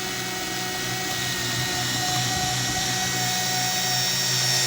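Power drill-driver running steadily as it drives a self-tapping screw into an OSB floor sheet from below, pulling the sheet up tight. The motor whine holds one pitch and grows slightly louder as the screw goes in.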